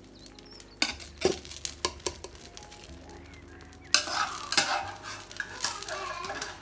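Food being stirred in a pan with a utensil: a few light knocks of the utensil on the pan, then a louder stretch of sizzling from about four seconds in.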